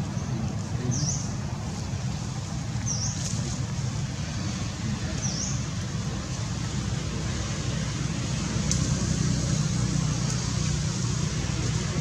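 A steady low rumble, with three short, high chirps about two seconds apart near the start.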